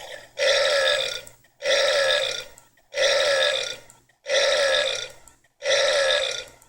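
Five loud burps in a row, evenly spaced a little over a second apart, each starting suddenly and fading out within about a second.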